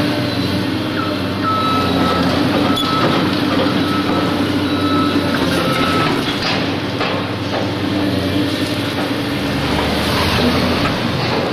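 A heavy vehicle's engine running steadily, with a reversing-alarm beep sounding four times, about every second and a half, in the first half.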